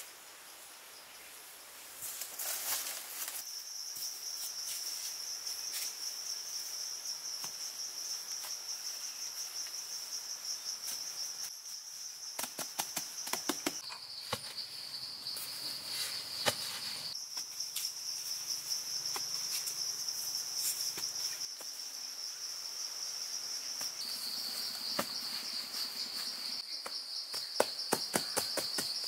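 Insects droning steadily at a high pitch, starting about two seconds in, the pitch stepping slightly a few times. Over it come scattered crackles and taps as grass sod is handled and pressed into the ground, thickest near the middle and toward the end.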